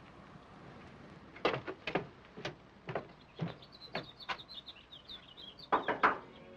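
Boot footsteps on a wooden porch, about two steps a second, with high bird chirps behind them from the middle on. A louder cluster of knocks comes near the end.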